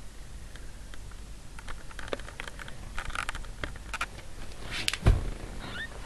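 Newborn kittens shuffling and rustling in their bedding, with scattered small clicks, a single loud thump about five seconds in and a faint rising squeak just after it.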